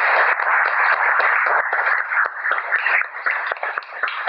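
Audience applauding: a dense patter of many hands clapping that thins out into scattered claps over the last couple of seconds.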